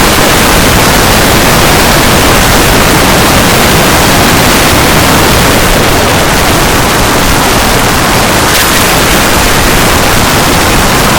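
Very loud static-like noise, even across high and low pitches and steady throughout, at a level near clipping.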